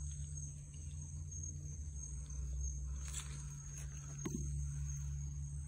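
A faint, steady insect drone, one high shrill tone, over a low rumble, with a couple of faint clicks about three and four seconds in.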